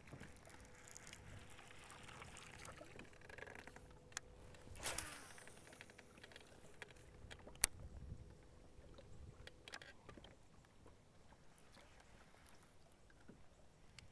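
Faint water lapping against a boat's hull, with a faint steady tone underneath and a few sharp clicks, the sharpest about seven and a half seconds in.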